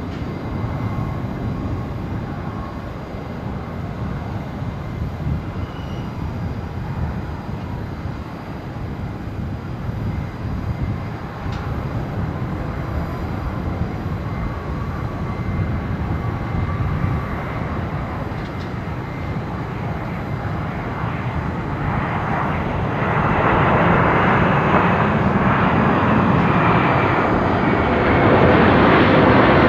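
Jet engines of a Boeing 777-300 on landing, a steady low rumble through the approach and touchdown. It swells much louder and harsher about three-quarters of the way through as the airliner rolls along the runway.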